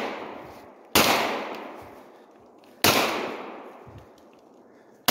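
Glock 19 9mm pistol fired twice, single shots about a second in and just under three seconds in. Each shot echoes and dies away over about two seconds, and another shot comes right at the end.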